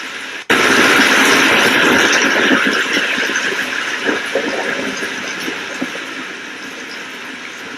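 Steady rain, then about half a second in a sudden loud thunderclap that crackles and rumbles, fading over several seconds back into the rain.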